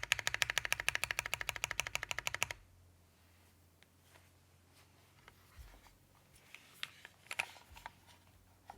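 Fast, even typing on a plateless 60% mechanical keyboard with lubed, retooled Cherry MX Black linear switches and CRP Tulip keycaps. The run of keystrokes stops about two and a half seconds in, followed by a few scattered light key clicks.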